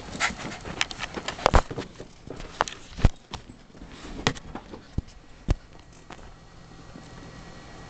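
A ferret and a papillon dog playing: irregular scuffles, taps and thumps of paws and bodies, a few of them sharp and loud, dying away after about six seconds.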